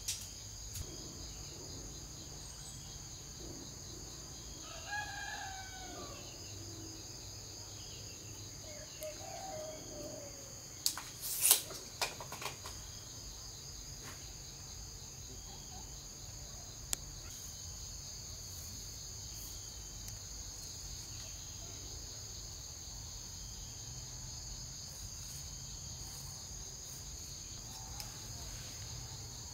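A rooster crowing twice over a steady high insect drone, with a quick cluster of sharp knocks about eleven seconds in.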